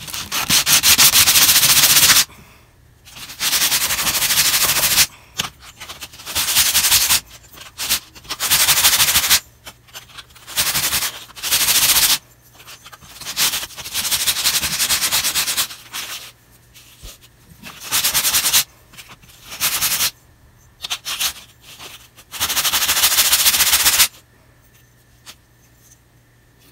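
A carved wooden bait blank rubbed by hand on a sheet of coarse sandpaper: bursts of fast rasping strokes, each lasting one to three seconds with short pauses between, stopping about 24 seconds in.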